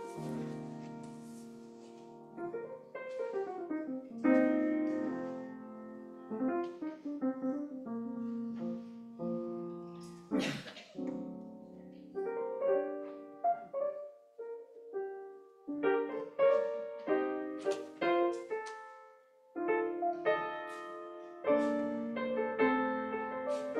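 Solo piano music, single notes and chords struck and left to ring, with a short dip in the playing about three-quarters of the way through. A brief noise cuts across the music about ten seconds in.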